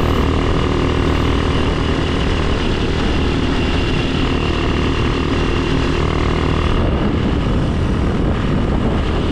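A motor vehicle's engine running at a steady speed while on the move: a constant loud drone with no change in pitch.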